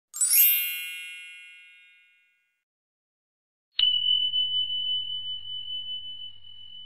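Sound effects of an animated subscribe button. A bright shimmering chime of many high tones sounds just after the start and dies away over about two seconds. Near four seconds in comes a sharp click, then a single high bell ding that rings on steadily and fades slowly.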